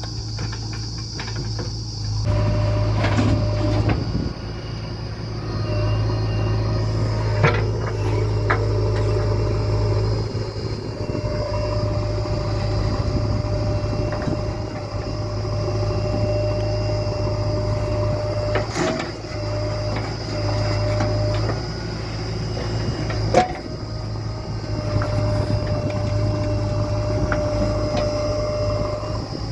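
Heavy diesel engine of a JCB backhoe loader running steadily under work while it digs and loads mud, with a few sharp knocks from the digging.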